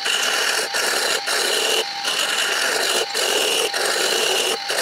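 A turning chisel cutting a spinning wooden spindle on a wood lathe: a rough scraping hiss with a high ringing tone, broken by short gaps every half second to a second as the tool comes off the wood and goes back on. A steady motor whine runs underneath.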